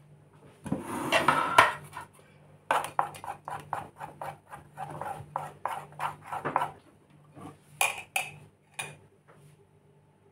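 Kitchenware clatter: a metal spoon clinking in an enamel bowl and the bowl knocking against a metal baking tray. It comes as a run of quick clinks, about four a second, with a few sharper knocks near the end.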